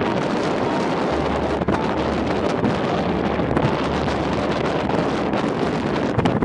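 Storm wind buffeting the microphone, with a low rumble that comes in about a second in, over the steady rush of heavy surf breaking on a rocky shore.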